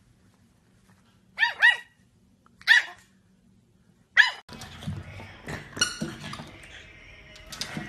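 French bulldog puppy yapping in short, high-pitched barks: two quick yaps about a second and a half in, another near three seconds and a last one about four seconds in. After that comes a busier stretch of rustling noise.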